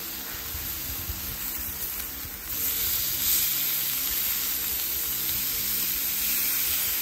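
Ribeye steaks sizzling as they sear in a cast iron skillet over medium heat, turned with metal tongs. The sizzle is steady and grows louder about two and a half seconds in.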